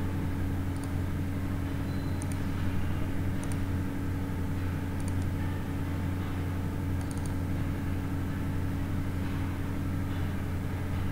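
A steady low machine-like hum over background noise, with faint paired clicks every second or two.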